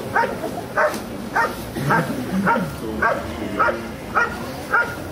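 German Shepherd Dog barking at a helper in the blind in sharp, evenly spaced barks, about one every 0.6 seconds. This is the IPO protection hold-and-bark, where the dog holds the decoy in place with continuous barking.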